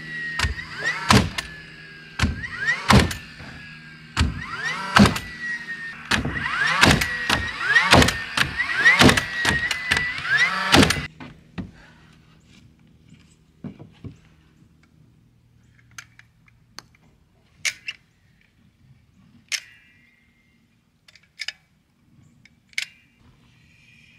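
Battery-powered nail gun tacking truss lumber together: about a dozen nails fired in quick succession, each shot preceded by the motor's rising whine. The nailing stops about 11 seconds in, followed by a few light clicks of a caulking gun as construction adhesive is laid on.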